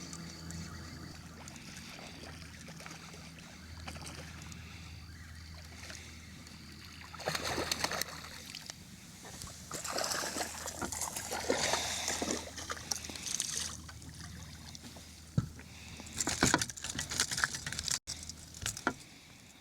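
A hooked speckled trout splashing and thrashing at the water's surface beside a kayak, in three bursts, under a low steady hum.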